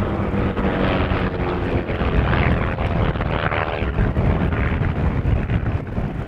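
Propeller-driven aerobatic biplane piston engines droning in flight, their pitch drifting slightly, with wind rumbling on the microphone.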